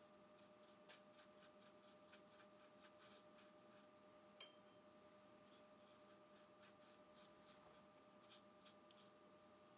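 Near silence with a faint steady hum, under faint scratchy ticks of a watercolor brush working on paper. About four seconds in there is one sharp, short ringing click.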